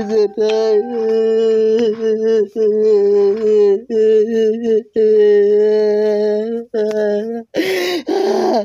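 A man wailing in a crying, sing-song voice: long drawn-out notes on a nearly steady pitch, broken by short breaths, with a sharp gasping breath near the end followed by a falling cry.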